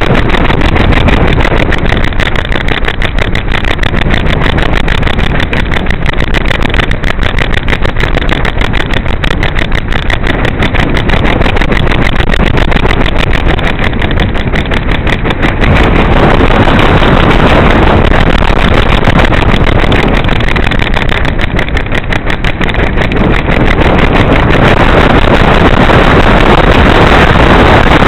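Wind rushing over a camera strapped to a flying pigeon, pulsing rapidly throughout and growing louder about halfway through.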